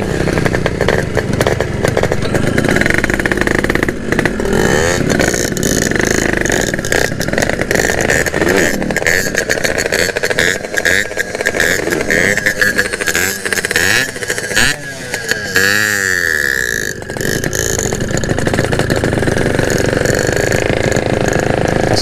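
Yamaha RX-King two-stroke single-cylinder motorcycle engine running under way, the throttle opened and closed so the pitch keeps rising and falling, with a quick rev up and down about fifteen seconds in.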